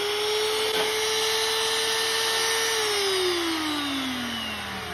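Magnetic drill press motor running at a steady speed with a whine, then switched off about three seconds in and winding down, its pitch falling steadily.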